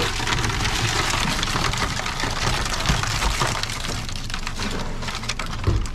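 Seawater pattering and dripping off the netting of a freshly hauled crab pot as it is tipped and shaken over a plastic basket, with small knocks of the pot and crabs against the basket, over a low rumble.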